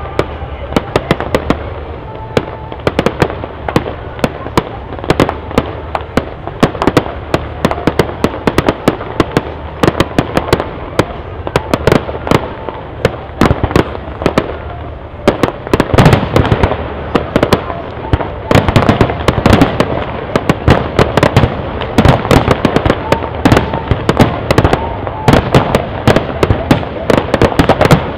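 Aerial fireworks going off in a fast, continuous run of bangs and crackles. The shots come thicker and louder about halfway through.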